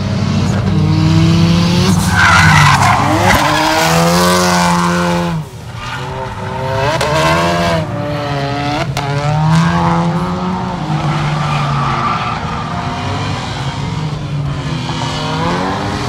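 Turbocharged Ford Mustang EcoBoost drifting: the engine revs rise and fall again and again under throttle, with a sharp drop about five seconds in, while the tyres squeal and skid.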